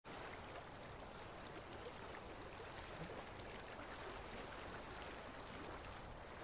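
Faint, steady rushing of sea water along a small cargo ship's hull as the ship moves.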